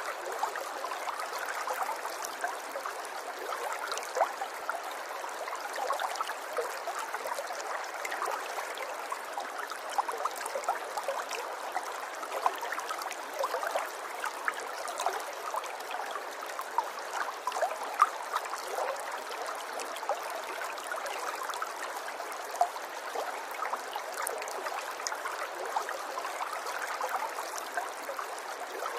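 River water flowing: a steady babbling rush full of small quick splashes and gurgles.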